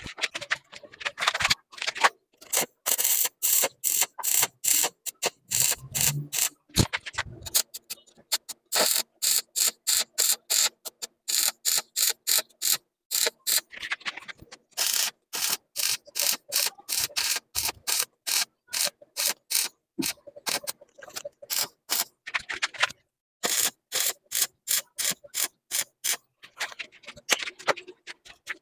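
Rapid hammer blows on the steel frame of a Yamaha DT125 dirt bike, about three a second, in runs with short pauses, as the frame is bent into shape.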